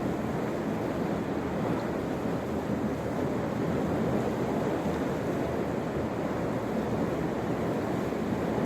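Steady, even rushing noise with no breaks or distinct events, of the kind made by wind or moving water outdoors.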